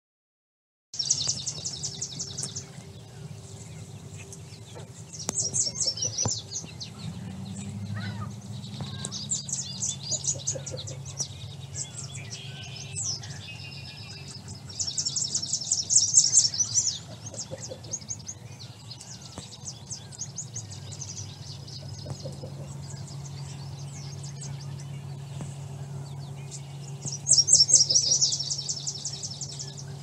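Small songbird singing a burst of rapid, high, rattling notes every few seconds, with other birds calling more quietly in between, over a steady low rumble.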